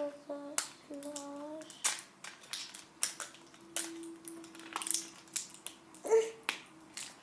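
Toy packaging being handled and opened by hand: a run of short crinkles, rustles and clicks of plastic and card.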